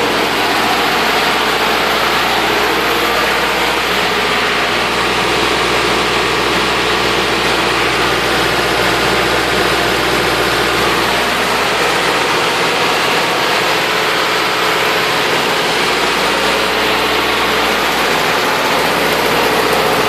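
Three-cylinder diesel generator engine, with a welder hooked up, running steadily and pretty loud, with no change in speed.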